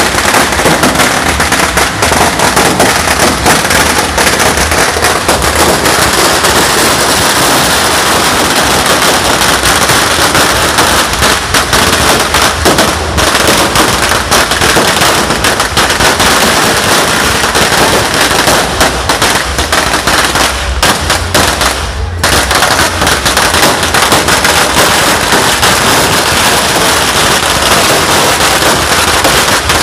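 Firecrackers going off in a dense, continuous barrage of rapid cracks, with a brief lull about two-thirds of the way through.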